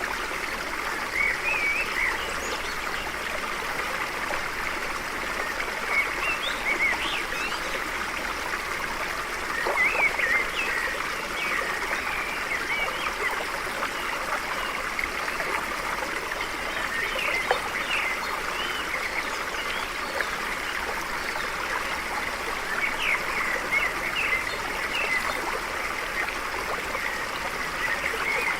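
Stream running steadily, with short bird chirps scattered through it.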